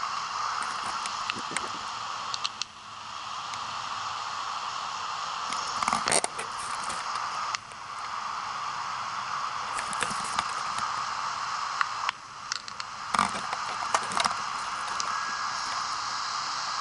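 Steady hiss with rustling and scraping handling noises, sharpest about six seconds in and again twice near the end.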